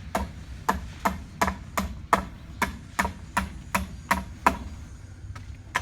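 Rapid, evenly spaced hammer strikes, about three a second, stopping about a second before the end, as the crew fastens house wrap and siding to the wall.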